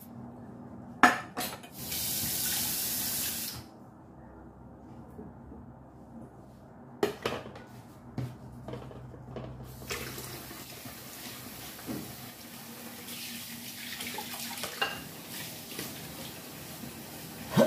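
A stainless steel pot set down in a kitchen sink with a knock, water running briefly, then dishes clinking. From about halfway the tap runs steadily while a plate and the pot are washed by hand, with occasional clinks.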